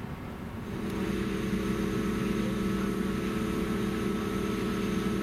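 Steady droning hum of a ship's machinery, several low tones held level, coming in about a second in over a background hiss.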